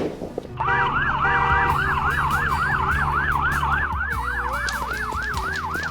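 Police car siren in a fast yelp, rising and falling about three times a second, starting about half a second in over a low rumble.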